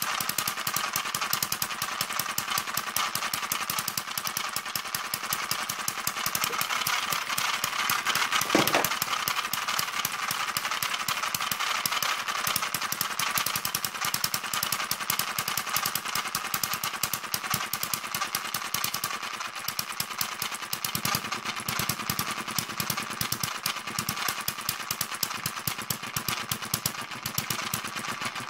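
Kerzel hit-and-miss model engine, a small spark-ignition single-cylinder engine on petrol, running fast with steady rapid firing and no missed beats, its stiff governor not yet working. Its new, tight gears are noisy, giving a steady clatter, with one louder knock about nine seconds in.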